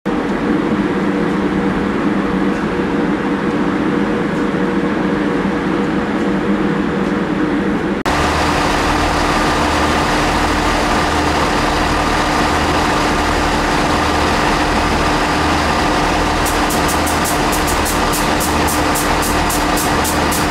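Railway locomotive standing with its engine idling, a steady hum. The sound changes abruptly about eight seconds in, after which a slow low throb runs under it. Near the end a rapid high ticking, about three a second, joins in.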